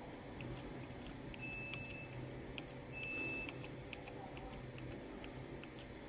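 Quiet workbench with faint ticks as a soldering iron works along the flex-strip contacts of a phone LCD, and two short high beeps about a second and a half apart.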